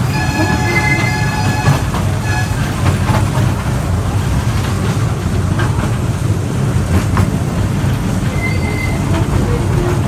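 Ride-on toy train running along its track: a steady low rumble, with high-pitched wheel squeal over the first couple of seconds and again briefly near the end, and a few faint clicks from the rails.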